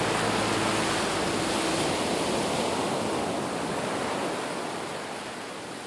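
Sea waves breaking on a shore, a steady rushing that fades out gradually toward the end. The last held notes of background music die away in the first two seconds.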